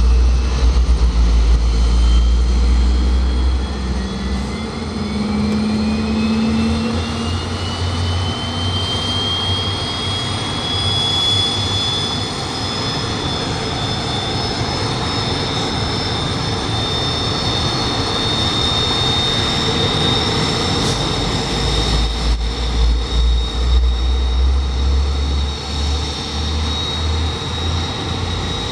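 Mitsubishi T-2 jet engines spooling up on start: a high turbine whine climbs in pitch over several seconds, then settles into a steady high whine at idle over a low rumble.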